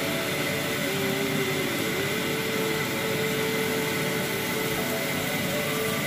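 Steady rushing hiss from the stove and a simmering pot of fish gravy, with a few faint held tones over it.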